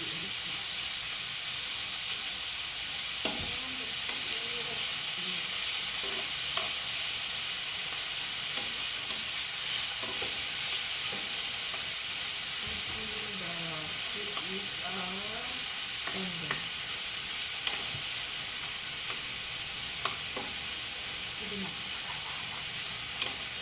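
Beef sizzling as it sautés in a pan, with a steady frying hiss and a few sharp taps of a utensil against the pan as it is stirred.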